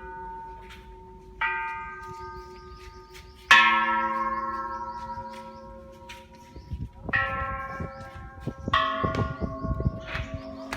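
Thai Buddhist temple bells struck one after another, about four strikes, each bell ringing on at its own pitch and dying away. The second strike, about three and a half seconds in, is the loudest and rings longest.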